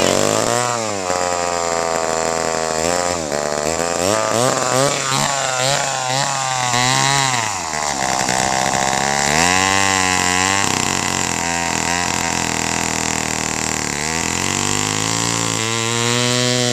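Wizard two-stroke chainsaw running unevenly, its engine speed rising and falling over and over, then dropping away at the very end. It is starved of fuel, which the owner puts down to a split or slipped-off fuel line.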